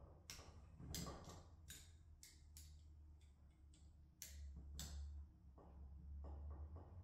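Faint, irregular metallic clicks and ticks from small metal parts being handled as a control cable's end fitting is worked onto a hydraulic control valve, over a low steady hum.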